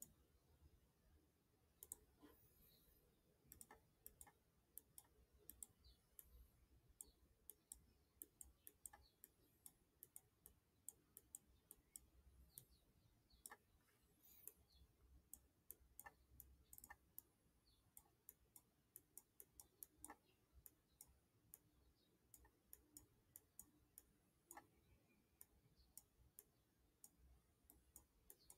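Near silence with faint, irregular clicking, several clicks a second at times, from the strokes of hand-writing characters onto the screen with a computer pen input device.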